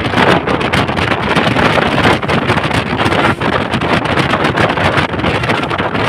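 Loud, steady rush of a moving bus heard from inside by the window: engine and road noise mixed with wind buffeting the microphone.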